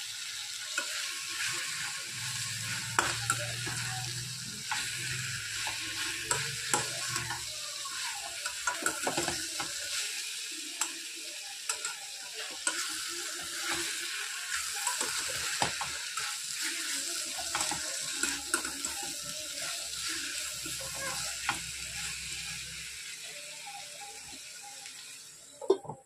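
Brinjal, drumstick and onion mixture frying and sizzling in oil in a stainless-steel pan, with a steel spoon stirring and scraping against the pan in frequent clinks. Near the end a sharp clank comes as the steel lid goes on, and the sizzle drops away suddenly.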